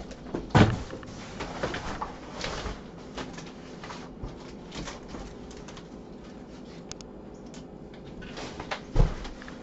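Large cardboard shipping box and folded cardboard cutout being handled and pulled out: irregular scraping and rustling of cardboard, with a loud thump about half a second in and another near the end.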